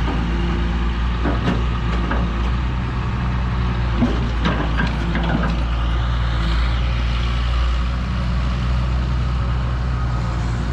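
Backhoe diesel engines running steadily at work, with scattered short knocks and clanks a few times in the first half.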